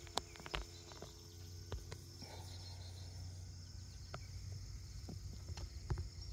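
Faint evening field ambience: a steady high insect chirring with a low steady hum underneath, broken by scattered light clicks and rustles.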